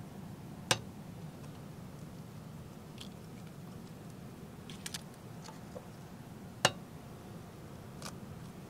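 Eggs tapped against the rim of a stainless steel mixing bowl to crack them: two sharp taps about six seconds apart, with fainter small clicks of the shells being pulled open in between.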